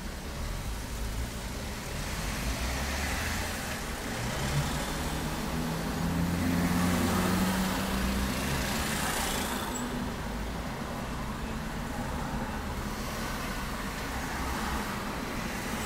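Street traffic with a car driving past about halfway through, its engine note rising and then fading.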